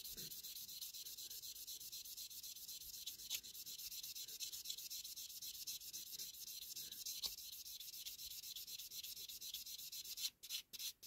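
Fine-grit sanding pad rubbed in quick back-and-forth strokes over a clear plastic diecast-model window unit, a faint scratchy rubbing. It is smoothing out scratches and haze to bring the plastic back to clear.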